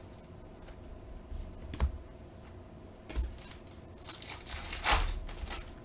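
Trading cards handled by hand: a few light taps and clicks as cards are flipped, then a longer rustle of cards sliding against each other about four seconds in.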